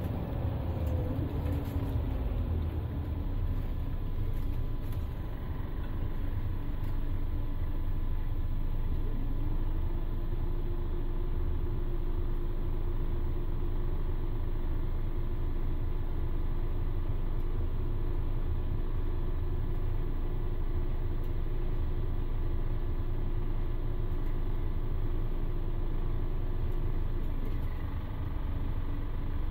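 Scania L94IB bus's DC09 five-cylinder diesel and ZF Ecomat automatic gearbox heard from inside the passenger cabin: the whine falls in pitch as the bus slows at the start, then the engine idles with a steady hum while the bus stands, and the pitch starts to rise again near the end as it moves off.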